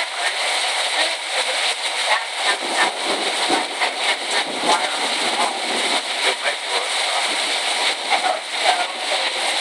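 Heavy rain pouring down and running off a roof eave: a dense, steady hiss dotted with many small splashes and spatters.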